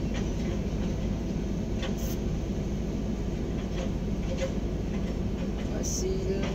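Excavator diesel engine running steadily, heard from inside the operator's cab as a continuous low hum, with a couple of faint clicks, one about two seconds in and one near the end.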